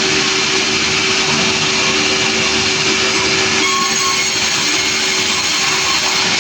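Sawmill running loudly and steadily, with a constant hum under the machine noise. The sound changes character about three and a half seconds in.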